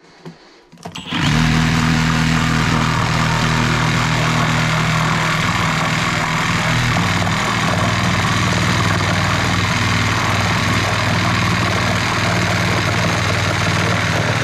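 Greenworks cordless reciprocating saw starting about a second in and running steadily at full speed as it saws through a piece with its wood blade.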